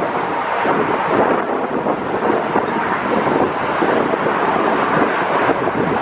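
Wind buffeting the microphone over the steady rumble of a moving car on the road.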